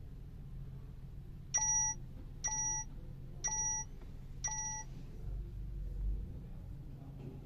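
Four short electronic beeps about a second apart, each a clear tone sounding at several pitches at once, over a steady low hum.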